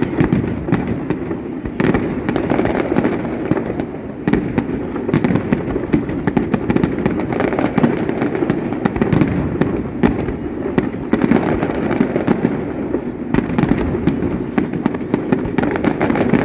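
Fireworks display in full barrage: a dense, continuous crackle with many sharp bangs every second.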